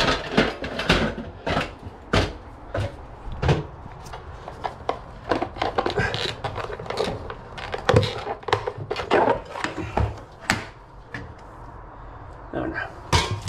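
A run of irregular knocks, taps and clicks from hand work on cable and fixings at the top of a brick wall, with an aluminium stepladder in use.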